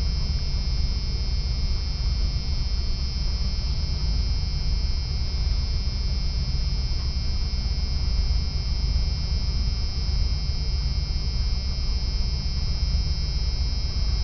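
A motorhome engine and road rumble heard from inside the cab, steady and low, with a thin steady high whine above it.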